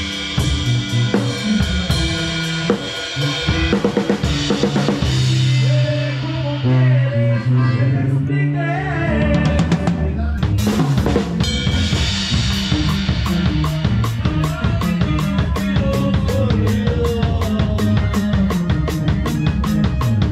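Loud dance music with a drum-kit beat. About four seconds in, the high end fades away as in a filter sweep. Around twelve seconds in, the full beat comes back with fast, even drum hits.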